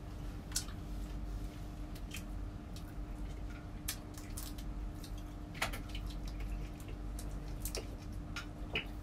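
Eating sounds at a table: scattered sharp clicks and light cracks as food is picked apart by hand and touches plates, over a steady background hum.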